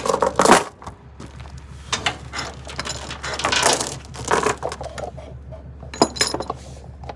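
Steel tie-down chain being handled and run to a tie-down point, its links clinking and rattling in several short bursts.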